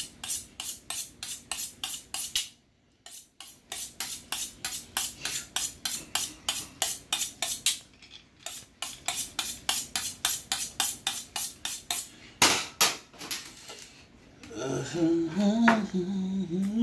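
Kitchen knife being honed on a steel rod: quick metal-on-metal scraping strokes, about four a second, in three runs with short pauses, sharpening the edge for clean cuts. A man's voice comes in near the end.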